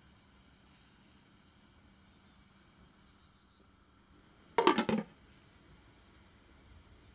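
A glass pot lid with a steel rim set down on a stainless steel wok: a quick rattling clatter of several knocks, about half a second long, a little past the middle.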